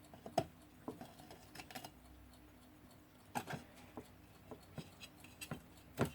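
Irregular small clicks and taps from hands handling a vintage alarm clock's case and glass, a few light knocks spread out with quiet between them.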